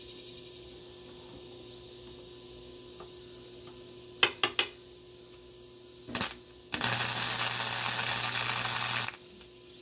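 Flux-core wire-feed welder arcing on the steel mower deck. Three quick arc strikes come about four seconds in and a brief one around six seconds, then a continuous weld run of about two and a half seconds with a low hum under it, which cuts off suddenly.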